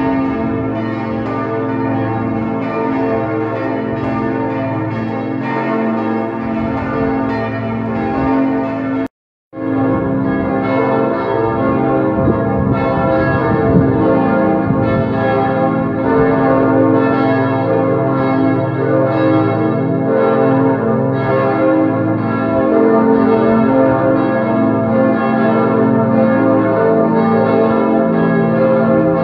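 Several church bells pealing together, overlapping strikes that ring on continuously. The sound cuts out completely for a split second about nine seconds in, then resumes.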